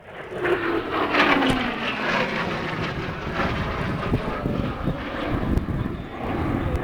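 An aircraft flying past overhead. Its pitch falls sharply as it goes by, leaving a steady rushing noise.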